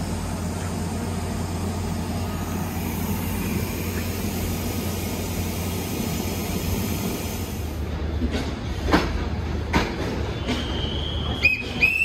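A passenger train running on the rails with a steady low rumble. From about two-thirds of the way in come a few sharp knocks, then short high-pitched wheel squeals near the end.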